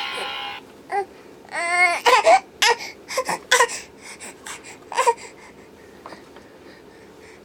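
A whining, cry-like sound, then a run of short coughing fits: the bad cough the household is worried about.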